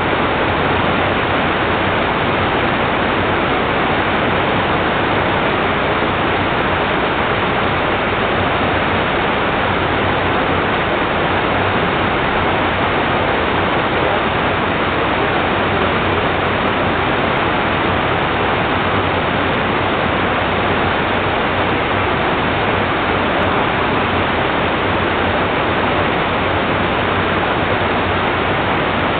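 Steady, loud rush of water with no breaks or changes.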